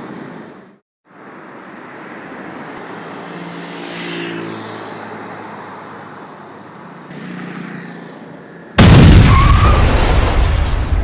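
A steady noisy rumble, then about nine seconds in a sudden, very loud explosion blast that slowly dies away.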